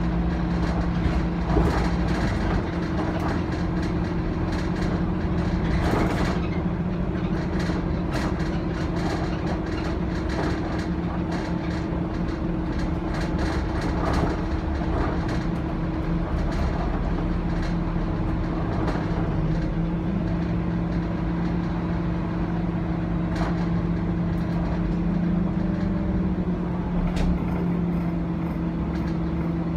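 Scania OmniCity N230UD double-decker bus under way, heard from inside on the upper deck. Its diesel drivetrain drones steadily over road noise, with frequent rattles and knocks from the body and fittings.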